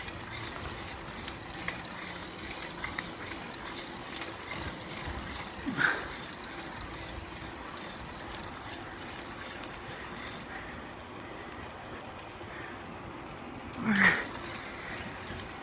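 Steady rolling noise of a mountain bike on pavement, with a hiss of wind and tyres and small rattles. Two short louder sounds with a quick change of pitch come about six seconds in and near the end.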